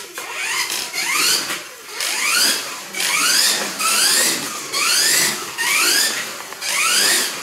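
Kyosho Mini-Z RC car's small electric motor and gears whining as it laps. The pitch rises over and over, about once a second, as the throttle is squeezed on each straight and eased for each corner.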